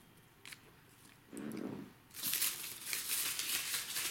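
Paper name slips rustling and crinkling as they are handled, starting about two seconds in, after a brief low sound.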